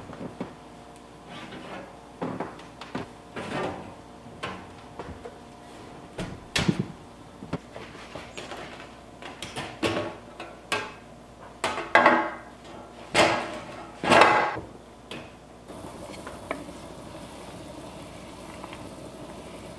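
Kitchen clatter: a run of knocks and clunks of cookware, including a metal loaf pan being tipped and knocked to turn a loaf of bread out onto a wire cooling rack, with the loudest knocks about twelve to fourteen seconds in. Near the end a steady low hiss as the sauce pot is stirred.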